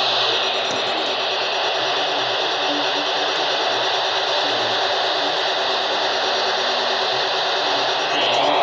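Steady hiss of radio static from a weather radio receiver on 162.400 MHz. A brief higher-pitched warbling band comes in near the end.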